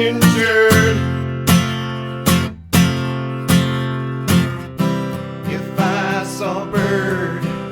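Acoustic guitar strummed in a steady rhythm, an instrumental passage of a song. A wavering higher melody line joins about five seconds in.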